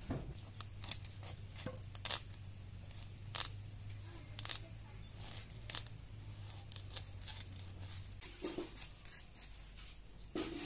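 A large rohu fish being cut on a boti, a curved blade fixed upright on a stand: irregular crisp scraping and snipping strokes as fins and scales are sliced against the blade.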